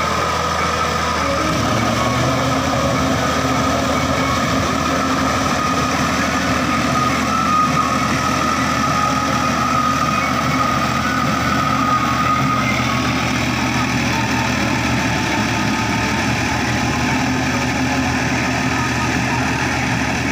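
Sonalika tractor's diesel engine running steadily under load while its rear rotavator churns a flooded paddy field to puddle it, a continuous even drone with a steady whine above it.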